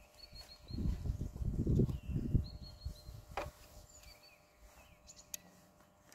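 Small birds calling in short runs of three or four quick high notes, repeated several times, with other brief chirps between. A low rumbling noise dominates the first half.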